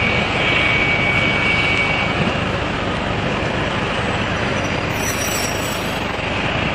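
A train running along the track: a steady rumble and rush of rail noise, with a thin high squeal that fades out about two seconds in.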